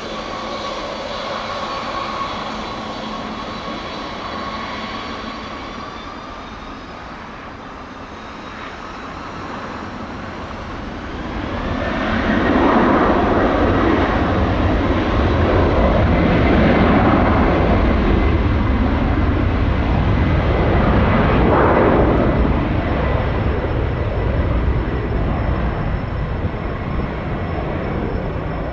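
Boeing 717-200's two rear-mounted Rolls-Royce BR715 turbofans departing. A jet whine sinks slightly in pitch over the first several seconds. Then the engine roar builds about eleven seconds in, stays loudest with a pulsing rumble for roughly ten seconds, and eases a little near the end.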